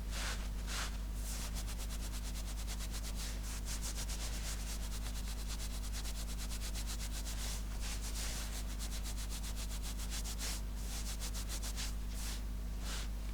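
Fast, regular scratching strokes on fabric, several a second, with a few longer, louder sweeping rubs in between.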